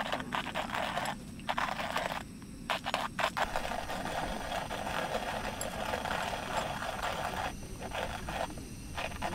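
Scratchy rustling and scraping that starts and stops several times, with short breaks about two seconds in and again near the end.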